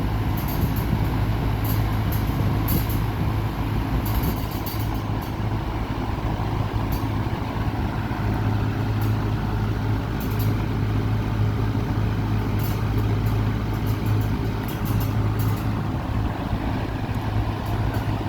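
1960s Lasko model 4735 box fan running steadily on its high speed: an even rush of air over a low, constant motor hum.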